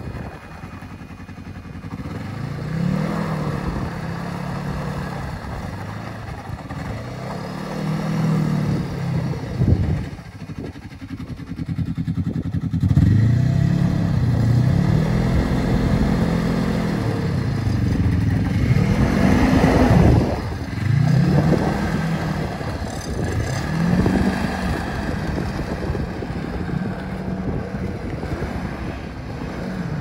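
Snowmobile engine revving up and easing off again and again, its pitch rising and falling every couple of seconds.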